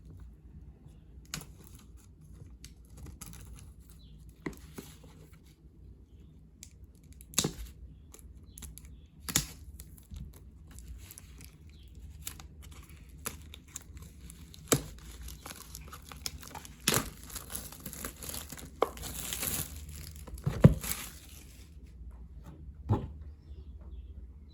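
Plastic packaging being torn open and crinkled by hand as an album is unwrapped, with scattered sharp clicks and taps. The rustling is thickest and loudest near the end, with a sharp knock in the middle of it.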